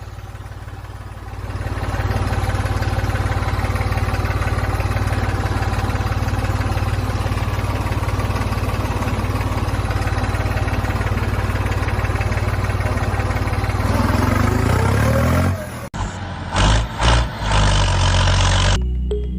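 A motor running steadily, building up over the first second or two and holding an even pitch, then cutting off sharply near the end. A short, choppy stretch of a different sound follows.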